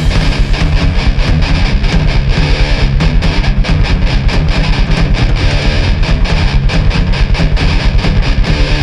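Hardcore punk band playing an instrumental passage: distorted electric guitar and bass over fast, steady drum hits.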